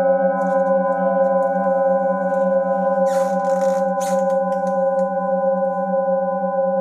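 Metal singing bowls ringing on in a sustained, slowly fading chord of several steady tones, the lowest tone pulsing with an even wobble. Brief noisy sounds, like a rustle, come about three and four seconds in.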